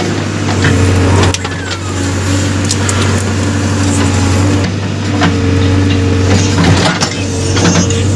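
A JCB 3DX backhoe loader's diesel engine running steadily under load. A higher whine comes and goes, and there are scattered knocks and clanks.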